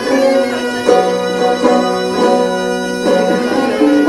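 Bağlama and violin playing a Turkish folk tune together, held violin notes over the plucked bağlama, with the melody moving from note to note.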